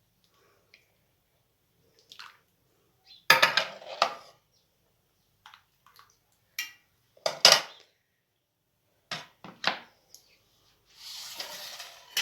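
Kitchen utensils clinking and knocking against a pot and dishes in a handful of separate strikes, two of them louder, followed near the end by a short rush of liquid.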